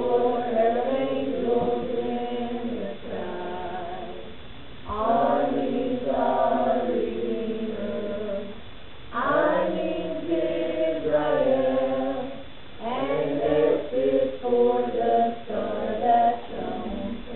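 Small mixed choir of teenagers and adults singing together, phrase by phrase, with short breaks between the lines.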